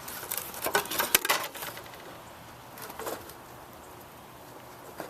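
Snow being pushed and scraped off a gazebo roof. There is a quick run of brushing, scraping strokes in the first second and a half, then one more brief scrape about three seconds in.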